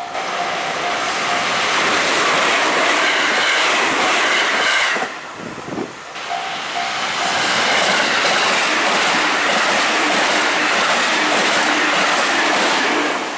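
Electric commuter trains running through a level crossing at speed, a loud rushing with wheel clatter over the rails, while the crossing's warning bell rings in a quick repeated ding-ding. The noise drops away briefly about five seconds in, then a second train passes close by.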